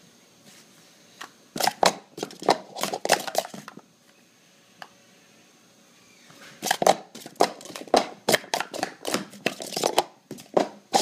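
Plastic Speed Stacks sport-stacking cups clattering in fast runs of sharp clicks as they are stacked up and down. One run comes about two seconds in; after a pause of roughly three seconds a longer, denser run starts and keeps going.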